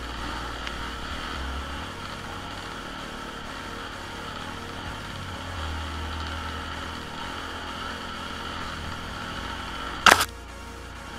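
Enduro dirt bike engine running steadily, with one sharp, loud knock about ten seconds in.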